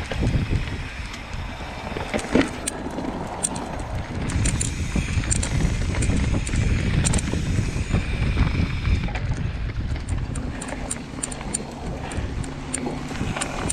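Wind buffeting the microphone of a camera riding along on a mountain bike, with the tyres running over a dirt trail and frequent clicks and rattles from the bike on rough ground.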